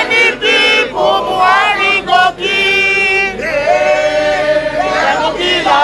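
A crowd of protesters singing together in chorus, with a long held note about midway.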